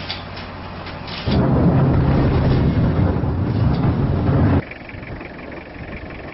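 Open-pit mine blast: a deep rumble that starts suddenly about a second in, holds for about three seconds, then cuts off abruptly.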